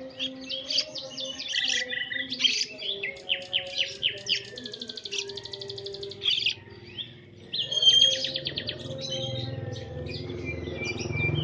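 Songbird chirping and singing: a busy run of varied, rapid high chirps and fast trills, with faint steady tones beneath and a low hum rising near the end.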